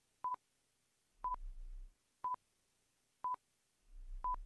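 Countdown timer sound effect: five short beeps of the same pitch, one each second, as the quiz's five-second answer countdown runs down.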